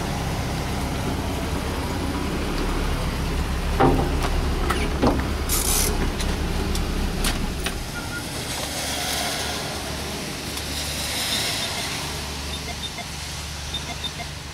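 Steady low rumble of outdoor background noise, with sharp knocks about four and five seconds in and a brief hiss shortly after.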